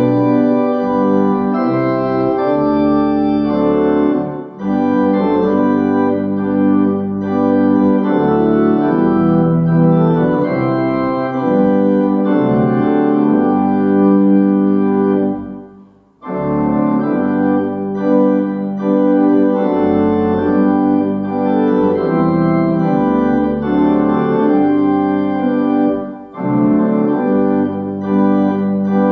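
Organ playing a hymn tune in sustained full chords that change every second or so, with a short break between phrases about sixteen seconds in.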